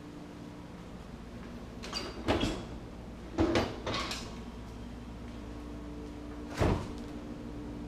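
A few knocks and clunks about two to four seconds in, then a louder thud near the end as the door of a GE side-by-side refrigerator is pulled open. A steady low hum runs underneath.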